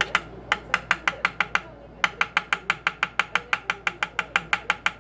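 A small wooden mallet tapping rapidly on the end of a metal punch held against a wooden tray: quick, light, even knocks, about six or seven a second, with a brief pause about a second and a half in.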